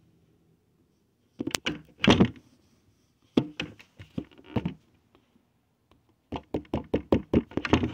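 Handling noise on a phone's microphone: short bursts of knocks and clicks about a second and a half in and again around three and a half seconds, then a quick run of clicks from about six seconds on.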